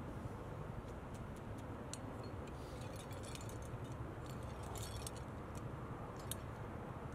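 Metal climbing gear, carabiners and cams racked on a harness, clinking in small scattered jingles as the climber moves, over a steady background hiss.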